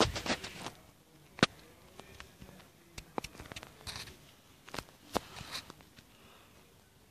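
Sharp clicks and soft rustling, packed together in the first second and then scattered singly: handling noise from a phone held right up against a pet rabbit and brushing its fur.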